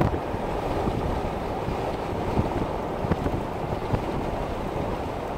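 Car driving along the road, a steady low rumble of road and engine noise with wind buffeting the microphone.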